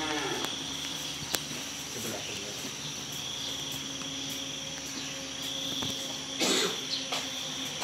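Night insects, crickets among them, chirping steadily in a high, thin chorus, with a faint low hum under it. A single click comes a little over a second in, and a brief louder noise about six and a half seconds in.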